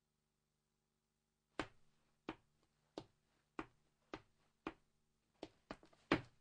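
Footsteps, sharp separate steps at a walking pace starting about a second and a half in, then a quicker run of steps near the end.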